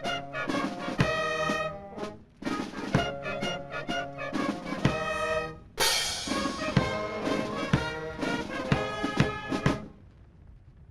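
Brass band music, trumpets and trombones over drums, with a cymbal-like crash about six seconds in; the music breaks off about ten seconds in.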